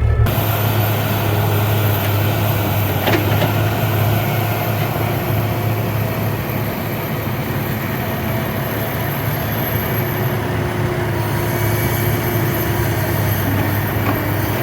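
Heavy diesel engines running steadily, from an excavator and trucks loading gravel.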